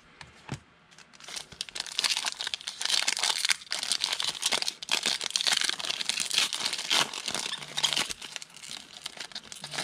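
Trading card pack's foil wrapper being torn open and crinkled by hand, a dense crackling that starts about a second in and thins out near the end.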